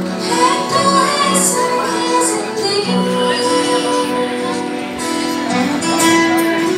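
A girl singing a melody into a microphone over instrumental accompaniment, holding long, steady notes, amplified over the hall's loudspeakers.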